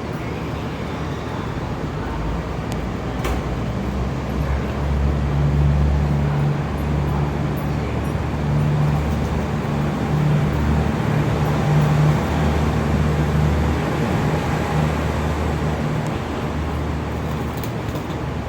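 313 series electric train at a station platform, its low steady hum swelling about four seconds in and easing off after about fourteen seconds.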